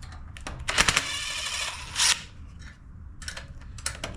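A cordless driver runs for about a second, with a short loud burst near the middle and scattered clicks and rattles of tool handling, as the bolts holding the ignition coil to the Briggs & Stratton engine are backed out.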